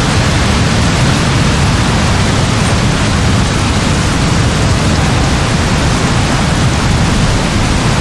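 Heavy rain pouring steadily: a dense, even wash of noise with a strong low rumble beneath it.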